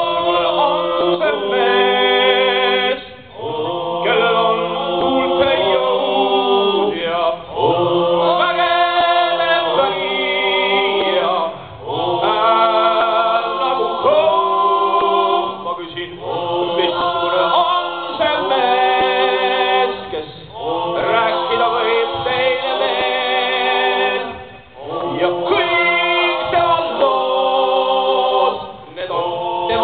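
A group of voices singing together. They sing in phrases of about four seconds, each followed by a brief pause.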